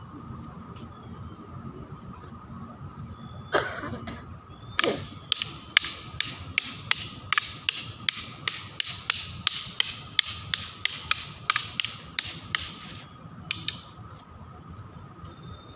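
Arnis sticks clacking together in a partner drill: a steady run of sharp strikes about three a second, starting about five seconds in and stopping near the end.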